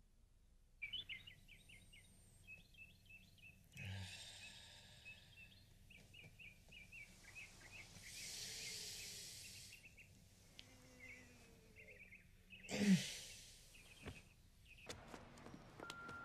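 Small birds chirping in quick repeated calls over faint outdoor ambience, with a person's loud sigh about thirteen seconds in.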